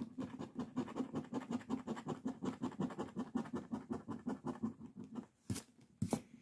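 A coin scraping the coating off a paper scratch-off lottery ticket in rapid back-and-forth strokes, about ten a second. The scraping stops about five seconds in, followed by two short taps.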